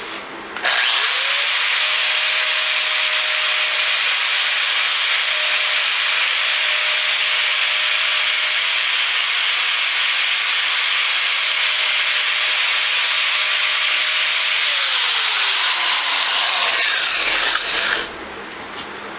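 Angle grinder running and grinding a jammed metal set pin on a bench vise, to cut it down so it can be driven out. It starts about half a second in and runs steadily with a constant motor whine. The whine falls as the grinder spins down near the end, and the grinding noise stops shortly after.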